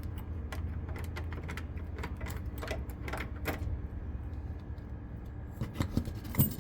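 Irregular light clicks and ticks from controls being handled in the HMMWV's cab, over a steady low hum, with a few louder knocks near the end.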